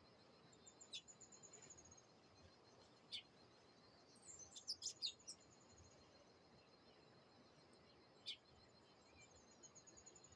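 Faint wild birds singing: a rapid high trill near the start and again near the end, with short sharp chirps between, a quick cluster of them about halfway through. A steady high-pitched buzz runs underneath.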